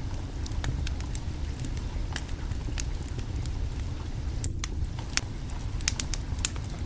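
Wood fire crackling: irregular sharp pops and snaps over a steady low rumble, a few louder pops in the second half.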